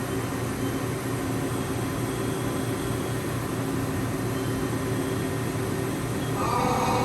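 Mori Seiki NH6300 DCG horizontal machining center running: a steady mechanical hum with several steady tones, joined near the end by a louder, higher-pitched whine.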